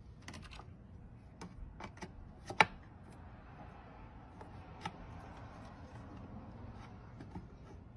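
Faint steady hum with scattered small clicks and taps of parts being handled inside an open desktop PC case. The sharpest click comes about two and a half seconds in.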